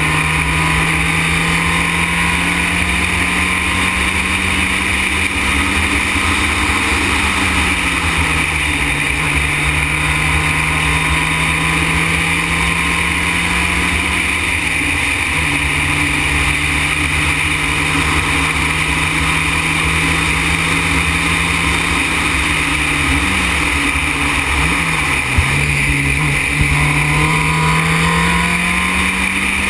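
Formula Renault single-seater's four-cylinder racing engine heard on board at speed. Its pitch climbs steadily and drops back at gear changes, with a quick run of dips and rises about three-quarters of the way through as the car brakes and shifts down for a corner. Constant wind and road noise runs underneath.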